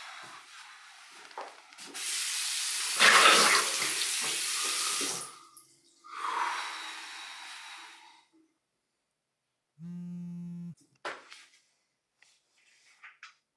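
Bathroom tap running into a sink, the water splashing in three surges, the middle one the loudest. About ten seconds in, a low steady buzz lasts about a second, followed by a few small clicks.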